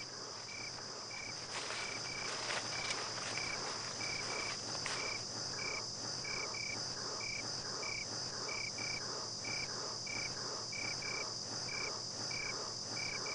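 Night insect ambience: crickets trilling steadily and high, with a shorter chirp repeating about twice a second beneath it.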